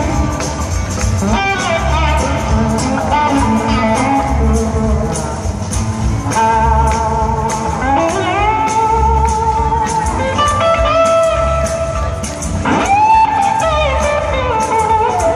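Live blues-rock band playing: electric guitars over bass and drums, with a lead line of long held notes that glide up into pitch, over a steady low beat.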